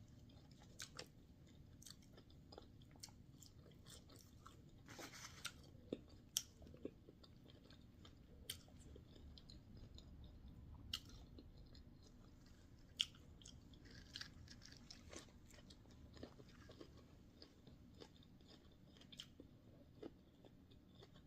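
Faint chewing: soft mouth clicks and smacks at scattered moments, a few a little louder than the rest.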